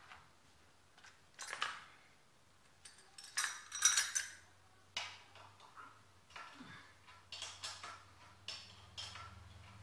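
Metal hand tools such as spanners clinking and rattling against each other and the mini bike's rear-wheel fittings, in a run of short sharp clatters, loudest about three to four seconds in.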